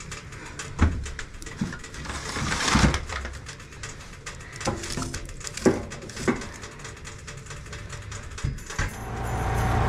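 Firewood being loaded into an open wood stove, with a series of irregular knocks and clunks of logs and the stove's metal door. Near the end a snowblower engine fades in and runs steadily.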